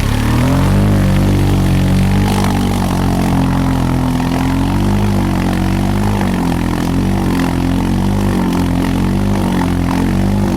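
ATV engine running under throttle, its pitch climbing just after the start and then rising and falling as the throttle is worked.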